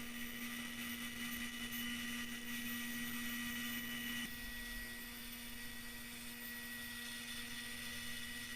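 Small electric power tool running at a steady whine while a brass pin is tapered.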